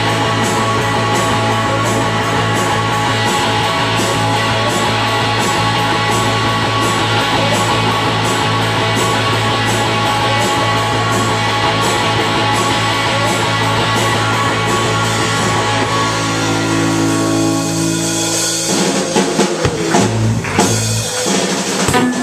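Live rock band playing loud, with a steady drum-kit beat, cymbals and electric guitar and the vocals buried low in the mix. Near the end the steady beat stops and the song closes on a held chord and a few scattered drum and cymbal crashes.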